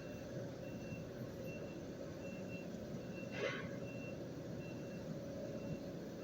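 A short, high electronic beep repeating about every 0.8 seconds over a steady workshop hum, with one brief hiss or knock about three and a half seconds in.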